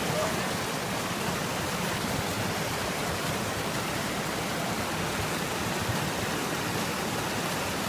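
Rushing river water, a steady, even hiss.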